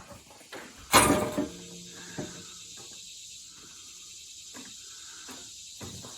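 A loud metallic clank about a second in that rings on briefly, among lighter clicks and knocks from handling metal parts at the tractor's hydraulic couplers.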